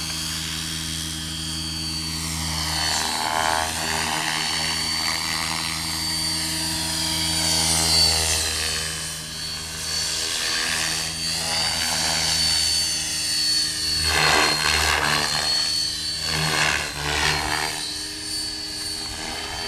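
Align T-Rex radio-controlled helicopter in fast aerobatic flight: a continuous high whine over a deeper rotor drone. The pitch rises and falls as the helicopter swoops and changes speed, and it grows louder around the middle and again a little later.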